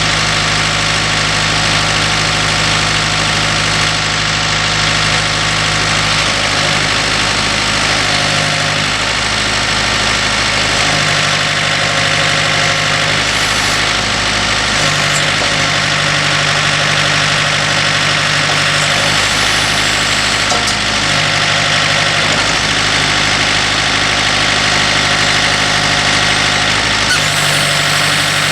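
Tractor engine running steadily at a low speed, its low hum dropping out and returning every few seconds.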